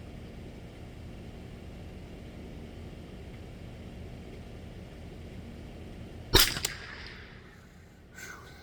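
A single .22 LR rifle shot about six seconds in: a sharp crack with a short echo trailing off, over a steady low rumble. A fainter short sound follows near the end.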